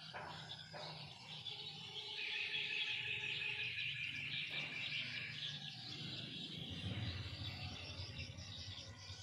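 Outdoor birdsong: birds chirping and calling, with a dense, high, buzzy trill from about two seconds in to past the middle.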